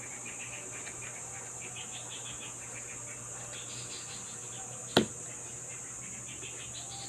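A steady high hiss with a low hum and faint chirping underneath. One sharp, loud click cuts through about five seconds in.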